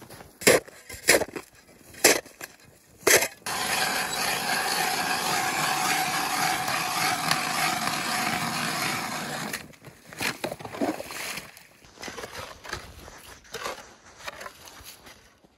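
Four sharp knocks on ice, then a hand ice auger grinding steadily through lake ice for about six seconds. It stops, and scattered scrapes and knocks follow as slush is scooped out of the fresh hole.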